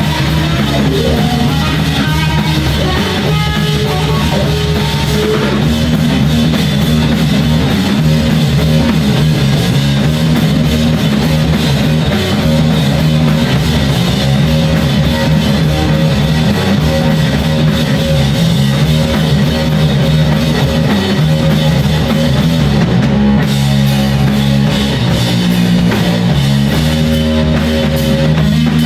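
Live rock band playing loudly: electric guitar, electric bass and drum kit.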